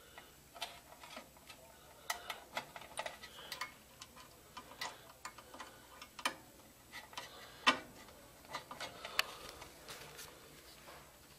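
Irregular small clicks and ticks of wire connectors being handled and pushed onto a furnace control board, with one sharper click about two-thirds of the way through.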